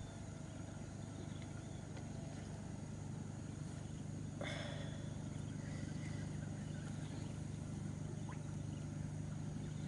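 Steady low hum of a small motor, with one brief sharp sound about four and a half seconds in.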